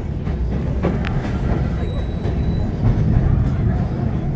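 Passenger train rolling along, a steady low rumble of wheels on the rails heard from inside a railcar, with a faint high squeal about two seconds in.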